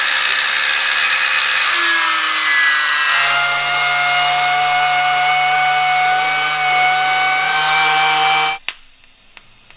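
Abrasive cut-off wheel cutting through metal pipe: a loud, steady, high whine whose pitch shifts about three seconds in. It stops abruptly near the end.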